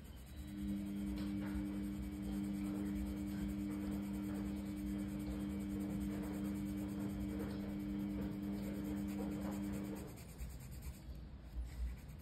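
Colored pencil scratching back and forth on coloring-book paper as an area is shaded in. Under it a steady low hum of two held pitches, which stops about ten seconds in.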